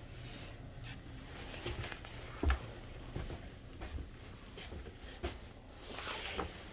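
Footsteps and handling knocks from a phone camera being carried through an empty room, with one louder thump about two and a half seconds in.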